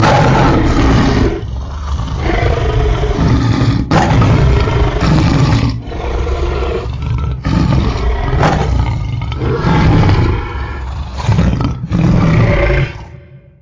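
Dinosaur roar sound effect: about five long, deep roars one after another, separated by brief breaks, the last one fading out near the end.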